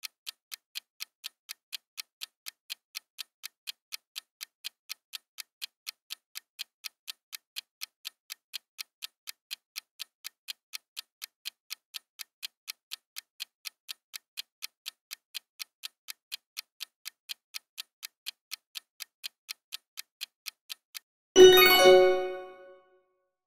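Countdown-timer sound effect: an even clock ticking, two to three ticks a second. About 21 seconds in it gives way to a bright chime that rings out and fades over about a second, marking the answer reveal.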